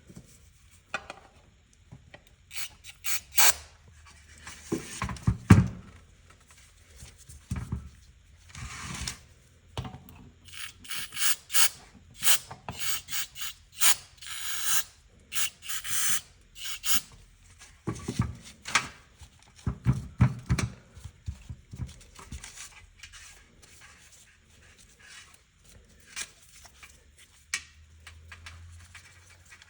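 Hand work on small metal carburetor parts and tools on a workbench: irregular clicks, knocks and rubbing, with a few short scraping or hissing passages. It is busiest in the first two-thirds and thins to occasional clicks near the end.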